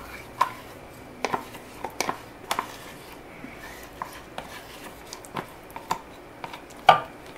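A wooden spoon scrapes and taps against a plastic tub as soft lard is scooped out onto raw pork in a pot. It makes a scatter of light knocks and scrapes, the loudest near the end.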